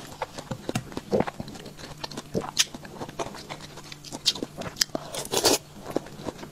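Close-miked biting and chewing of juicy pepino melon (ginseng fruit): irregular wet, crisp mouth clicks and crackles, with a louder crunchy bite about five and a half seconds in.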